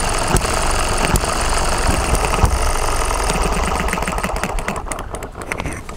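Eachine ET6 model hit-and-miss four-stroke petrol engine running: a steady mechanical clatter with a sharp firing pop about once a second. It gets quieter over the last two seconds.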